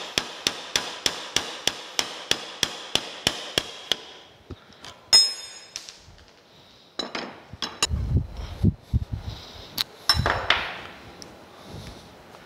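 Light hammer taps on steel, about four a second, each with a high metallic ring, driving a cast-iron crank handle off the end of a worm shaft clamped in a vise; they stop after about four seconds. A single ringing clang follows, then dull knocks as the metal parts are handled.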